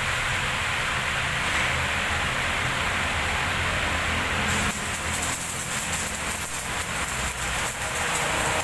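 A steady hiss, then about halfway through an electric welding arc strikes and crackles steadily as it welds a steel part held in a lathe chuck.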